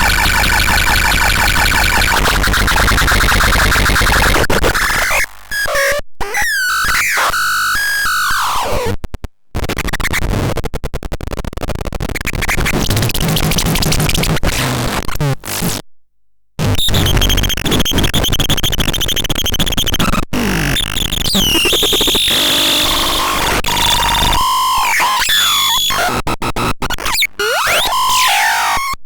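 Synthesizer playing harsh, noisy electronic tones with pitch sweeps gliding down and up, cutting off abruptly for brief moments of silence a few times.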